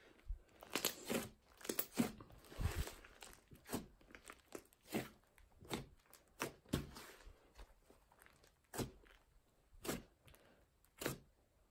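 Hands stretching, pressing and folding a large batch of butter slime, a glossy slime worked with Daiso clay. It gives irregular short crackles and soft pops as it is pulled and pressed.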